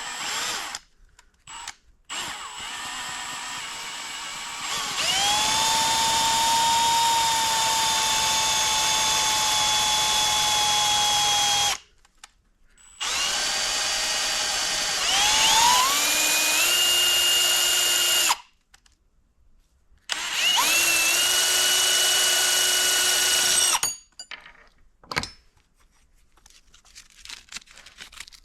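Small high-speed power tool cutting down a steel push rod. It runs in about four bursts, each spinning up with a rising whine and then holding a steady pitch that sags a little under load, with short pauses between them.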